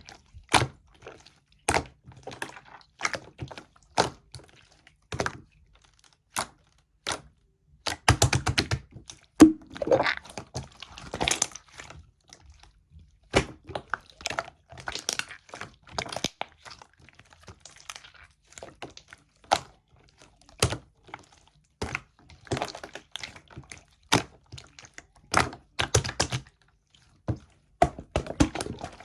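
Soft, milky white slime being squeezed, stretched and poked by hand, giving irregular sticky clicks and pops. There are quicker runs of clicks about eight and eleven seconds in, and short quiet gaps between handfuls.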